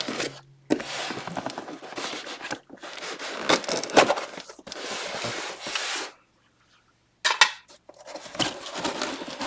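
A cardboard shipping box being torn and pried open, with tape and cardboard ripping and scraping in several long bursts and a short pause about two-thirds of the way through.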